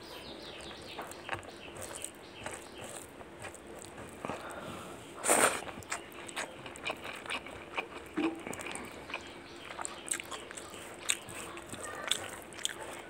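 Close-up eating sounds of rice with chicken curry and gravy: wet chewing, lip smacks and mouth clicks coming irregularly, with one louder, noisier sound about five seconds in.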